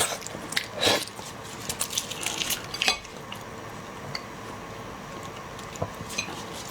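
Scattered light clicks and short crackles of shell-on prawns being handled and peeled, busiest in the first three seconds.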